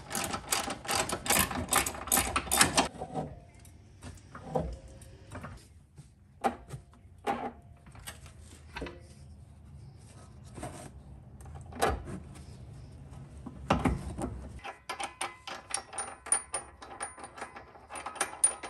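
Ratchet clicking rapidly on the front upper control arm's bolts for a few seconds, then scattered metal clinks and knocks as the arm is handled. Another run of rapid ratchet clicking comes near the end.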